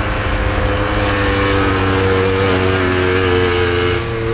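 Vintage two-stroke racing snowmobiles running at speed, their engines holding a steady high note that wavers slightly in pitch. Near the end the sound changes as one sled runs close by.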